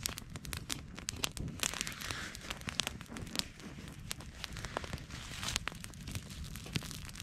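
Small stick campfire crackling with frequent sharp pops, and a burst of crinkling and rustling as something is handled about two seconds in.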